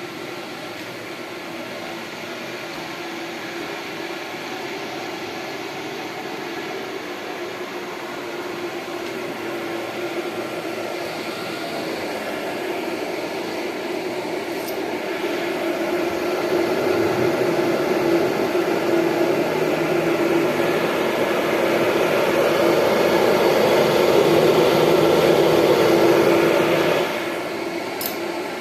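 A 150 mm inline duct fan running as a homemade dust extractor: a steady rush of air over a constant motor hum. It grows gradually louder and then drops off sharply near the end.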